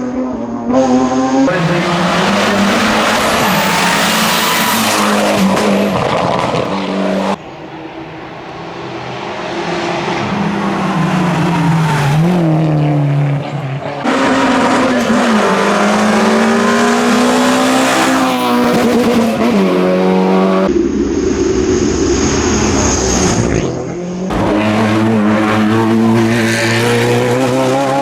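Hillclimb race car engines at hard throttle, revving up and dropping back through gear changes as the cars pass. The sound switches abruptly to a different car every few seconds.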